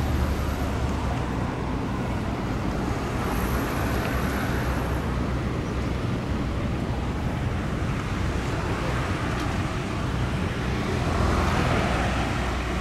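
Steady road-traffic rumble with a low hum under it, and a vehicle passing close by near the end.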